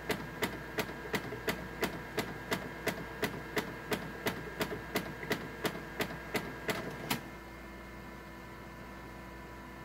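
Canon imageCLASS MF733Cdw colour laser printer clicking steadily, about three clicks a second, until the clicking stops about seven seconds in and only a faint steady hum remains. The owner ties this clicking to a fault in which printed pages come out with skipped lines.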